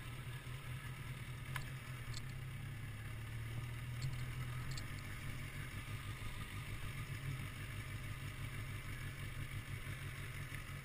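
Kawasaki ZX10R sportbike's inline-four engine running at low revs, a steady low rumbling pulse from the exhaust as the bike rolls slowly. The pitch dips slightly for a few seconds and then holds.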